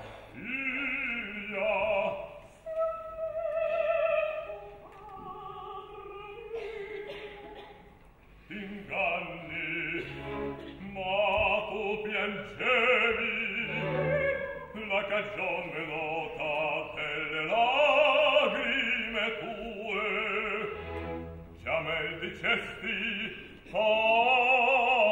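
Operatic singing with wide vibrato over an orchestra playing in the pit, sung in phrases with short breaks between them.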